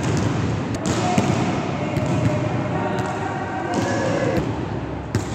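Volleyball being played in an echoing gymnasium: a few sharp hits of the ball over a steady hubbub of players' voices and calls.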